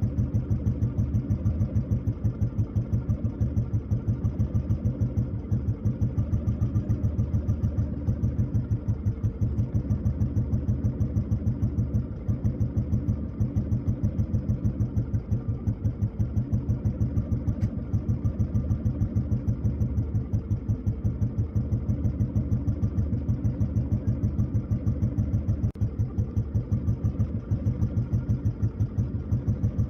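Motorcycle engine idling with a steady, even pulse, briefly breaking off a few times.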